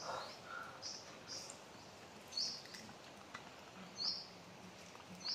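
A bird calling with short, high chirps repeated every second or two, over a quiet outdoor background.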